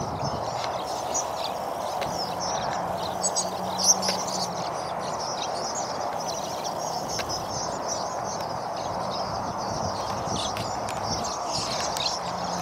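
A huge flock of swallows twittering: many overlapping short, high chirps throughout, over a steady background rush.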